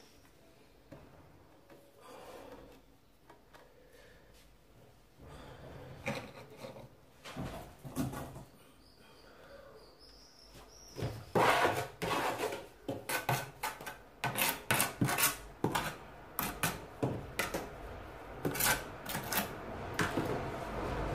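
Terracotta hexagonal floor tile being handled and set into mortar by hand: quiet rustling at first, then from about halfway a run of quick sharp knocks and scraping as the tile is worked against the floor and its neighbouring tiles.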